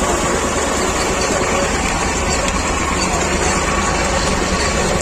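T-25 Vladimirets tractor's two-cylinder air-cooled diesel engine running steadily.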